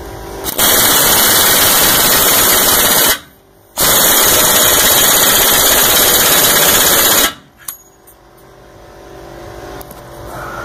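Pneumatic impact wrench hammering on a deep socket, driving the screw of a torsion bar unloading tool. It runs in two long bursts of a few seconds each with a short pause between, and the torsion bar is still not coming off. A quieter hum slowly builds near the end.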